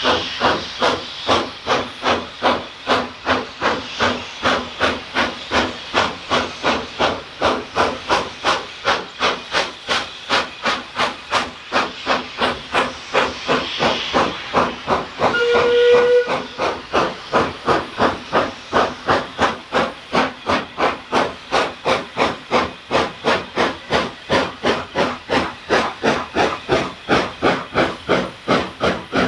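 Steam locomotive chuffing steadily, its exhaust beats coming evenly at about two and a half a second, with one short steam-whistle blast about halfway through.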